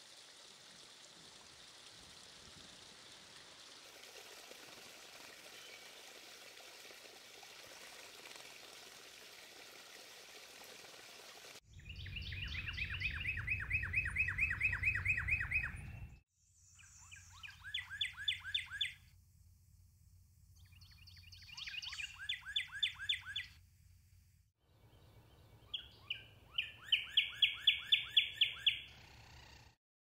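Male northern cardinal singing: four phrases, each a quick run of repeated down-slurred whistles, the last the loudest. For the first dozen seconds there is only a faint running-water hiss from the water feature.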